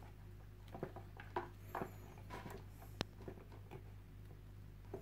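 Hasston 8-inch insulated combination pliers cutting through 16 mm² green-yellow cable: a series of faint crunches and clicks as the blades bite through the insulation and copper strands, with the sharpest click about three seconds in. The cable cuts fairly easily.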